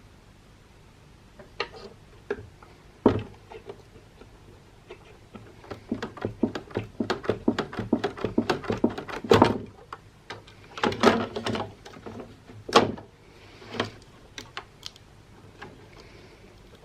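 Clicks, knocks and clatter of a defibrillator's plastic and metal parts being handled and taken apart, a few scattered at first, then a dense run of clatter through the middle.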